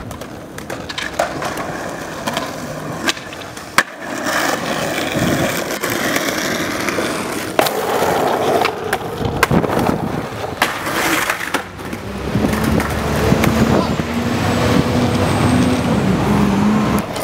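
Skateboard wheels rolling over concrete, broken by several sharp clacks of the board popping and landing.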